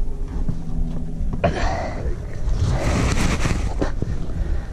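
Rumble and handling noise on a body-worn action camera's microphone as the climber scrambles on sandstone, with two longer bursts of scuffing hiss, about one and a half seconds in and again around three seconds in.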